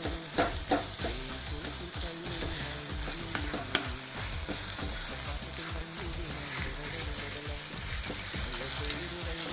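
Tomato, onion and spice masala sizzling in a nonstick pan as a wooden spatula stirs and sautés it, with a few sharp knocks of the spatula against the pan in the first seconds and once more near the middle.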